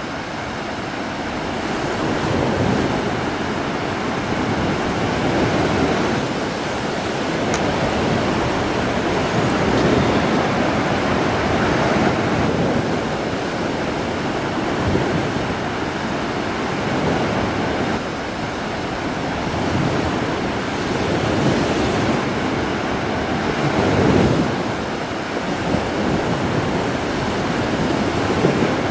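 Ocean surf breaking and washing up the beach, a continuous rushing that swells and eases every few seconds.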